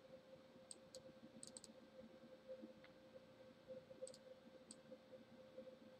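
Faint computer mouse clicks, a few short sharp ones in small groups, over a steady low hum.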